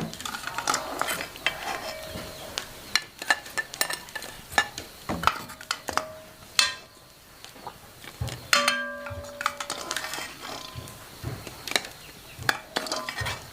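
Clinking and knocking of utensils against pots and bowls, many irregular strikes, with a pot or bowl ringing briefly about eight and a half seconds in.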